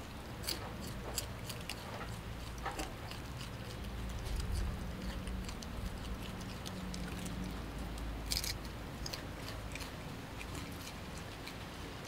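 Vervet monkey chewing and biting into sweet potato: faint, irregular clicks of eating over a low steady hum.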